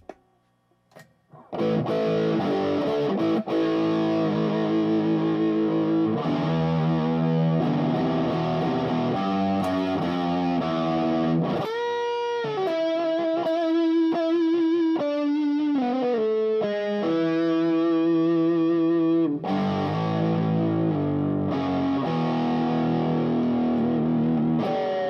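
Fernandes Strat-style electric guitar played through distortion, starting about a second and a half in after a few faint clicks. Sustained chords and single-note lead lines, with string bends and vibrato in the middle and again near the end.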